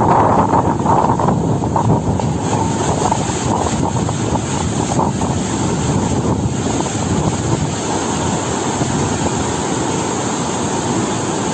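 Muddy floodwater rushing through a swollen stream, making a loud, steady noise of churning whitewater.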